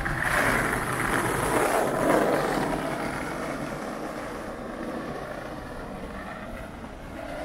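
A vehicle passing close by: a rush of road noise that swells over the first two seconds and then fades away.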